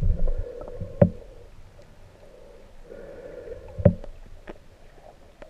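Muffled underwater sound picked up by a camera in its waterproof housing: a low rumble and faint hum, with a few sharp knocks or clicks about a second in and twice near the four-second mark.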